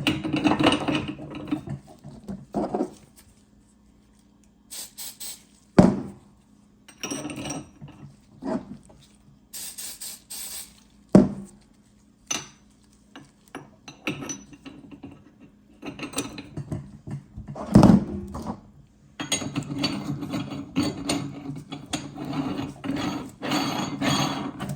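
Metal meat grinder parts being handled while they are lubed with oil: irregular knocks, clicks and rubbing, with a longer stretch of continuous scraping and rubbing near the end.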